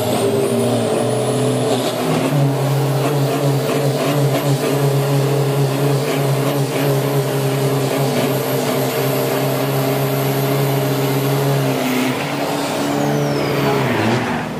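Turbo-diesel engine of an Isuzu D-Max drag-racing pickup held at high, steady revs during a burnout, the rear tyres spinning to heat them before a quarter-mile run. The revs drop about twelve seconds in.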